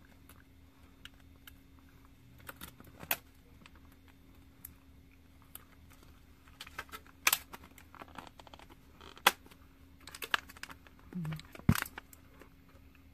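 Scattered sharp clicks and crackles, a handful of them louder than the rest, from chewing crispy chicken karaage and handling its plastic food packaging.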